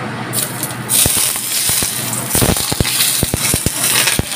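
Smoking-hot oil poured over a steamed fish topped with fresh ginger and scallions, sizzling and crackling hard. The sizzle starts suddenly just after the start and grows stronger about a second in, with a run of short low thuds through the middle.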